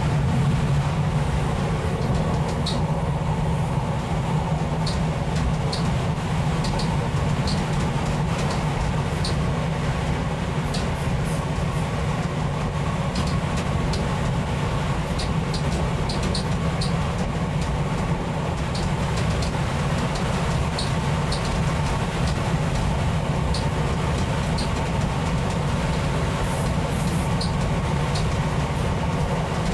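Diesel train running along the line, heard from on board: a steady low engine and running drone, with short, light, high-pitched clicks now and then.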